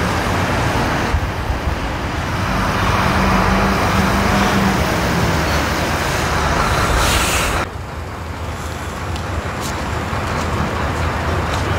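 Coach bus engine running as the bus drives slowly past close by, growing louder as it nears. It cuts off suddenly about two-thirds of the way through, leaving quieter vehicle noise.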